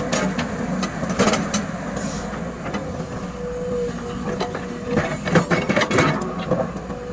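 SANY SY210C-9H excavator working: diesel engine running under a steady hydraulic whine, with a series of clanks and knocks, heaviest about five to six seconds in.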